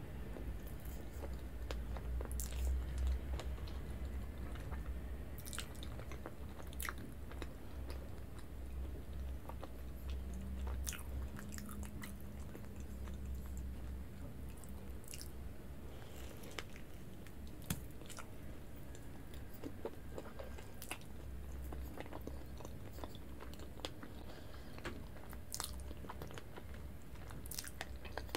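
Biting and chewing of soft, chewy strawberry mochi, with sharp, sticky mouth clicks scattered irregularly over a steady low hum.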